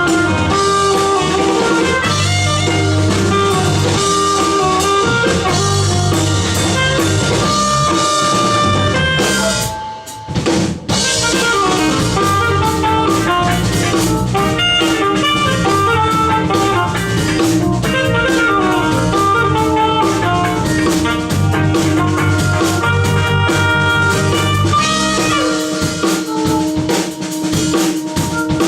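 Band playing an instrumental jazz-fusion cover, with drum kit and electric guitar over bass. About ten seconds in the band stops short for about a second, then comes back in on a drum hit.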